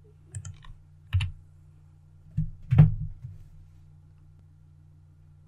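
A handful of separate computer keyboard and mouse clicks, about half a second to a second apart, the strongest near three seconds in, over a faint steady low hum.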